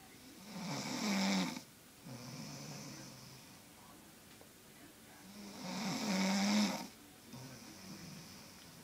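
Loud snoring: two slow breath cycles about five seconds apart, each a loud rasping snore followed by a softer, lower one.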